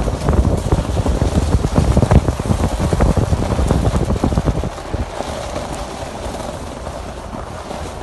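Footsteps crunching on gravel, with wind buffeting the phone's microphone; the crunching stops a little past halfway, leaving a softer wind rush.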